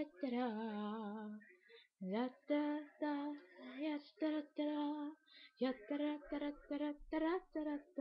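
A woman singing unaccompanied: a long held note with vibrato, then a string of short, quick notes.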